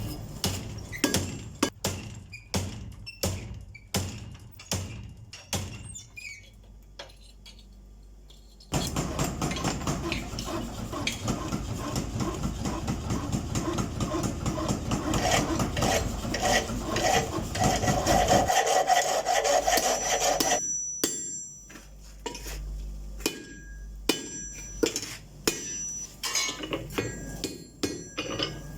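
Hand hammer blows on hot axe steel at the anvil, about one and a half a second, then a stretch of about ten seconds of continuous rough scraping, and then more irregular hammer blows near the end.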